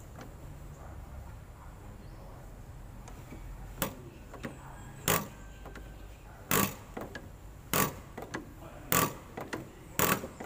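Diesel injector nozzle on a hand-lever nozzle tester spraying fuel in short, sharp hissing bursts, about one a second from around four seconds in, as the pump lever is stroked. This is a new nozzle atomizing fuel properly under test.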